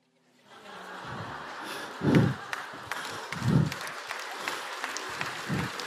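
Audience clapping, starting about half a second in and going on steadily, with a few short voice sounds rising out of the crowd over it.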